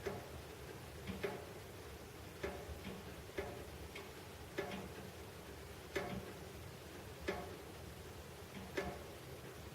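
Central heating pipes knocking: sharp metallic taps, each with a brief ring, about eight at uneven intervals of roughly a second or so.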